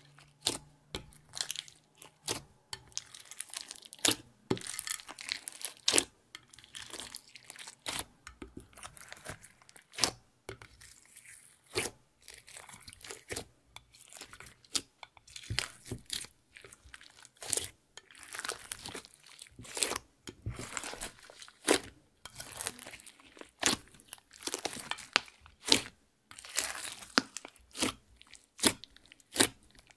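Hands kneading and squeezing clear slime mixed with crushed makeup powder, pearl beads and glitter: irregular sticky pops and clicks with crunching as the beads and powder are worked into the slime.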